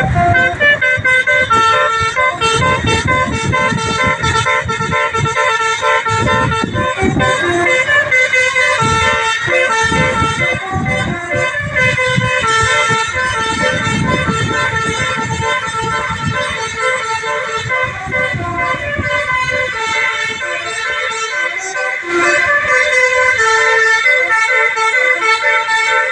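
A tour bus's 'telolet basuri' musical horn plays a tune nonstop, several notes sounding together and stepping from pitch to pitch, over the low rumble of the bus on the road.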